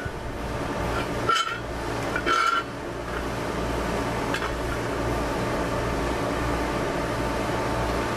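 Steel wheel rim clanking twice against threaded steel rods, with a short metallic ring each time, as it is set down over them. A steady low background noise fills the rest.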